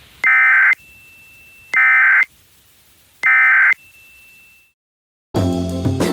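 Emergency Alert System SAME header: three short bursts of buzzy digital data tones, about a second and a half apart. Music starts near the end.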